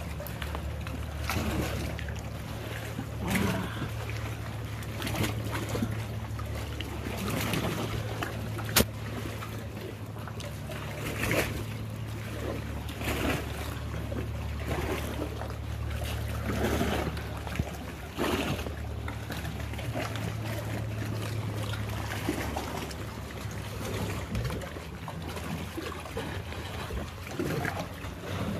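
Canoe paddle strokes through the water about every two seconds, each a swish and splash with water trickling off the blade, over a steady low hum. A single sharp knock comes about nine seconds in.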